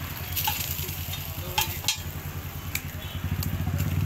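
Egg frying in oil on a flat iron tawa: steady sizzling, with the steel spatula clicking and scraping on the griddle several times as the egg is spread over the paratha.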